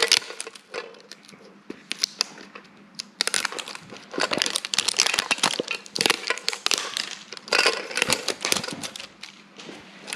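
Plastic wrapping of a Pokémon card mini tin crinkling and crackling in repeated bursts as it is handled, with sharp clicks among them.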